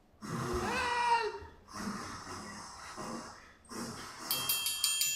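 Cartoon foley made by voice: a wavering, pitched cry, then three short breathy puffs. About four seconds in, a fast, even run of metallic ticks with ringing tones begins.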